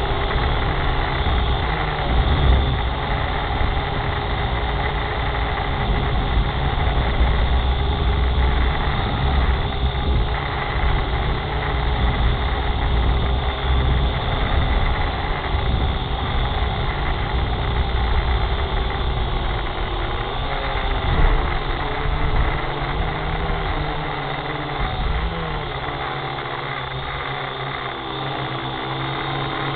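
A motor running steadily close to the microphone, with a strong low hum and some shifting tones. It eases a little about three-quarters of the way through.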